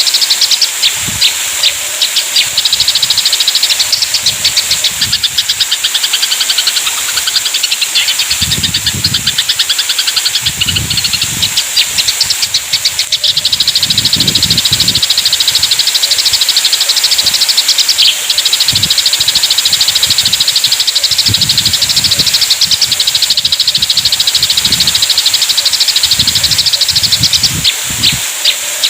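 Eurasian tree sparrows chattering in a fast, dense stream of chirps, the calls of sparrows fighting, over a steady high hiss with occasional low rumbles.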